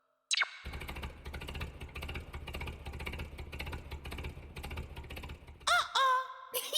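A motor or engine running with a fast, even rattle and a low rumble for about five seconds, after a short falling whistle. Near the end come high, gliding cartoon voice calls.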